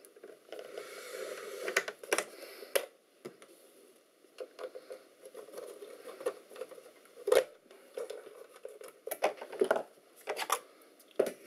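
A screwdriver scraping and turning in the screws of the steel cover plate over an HP 180A oscilloscope's high-voltage supply, then the cover being worked loose and lifted off. The sound is a faint scrape at first, then a series of sharp metallic clicks and taps.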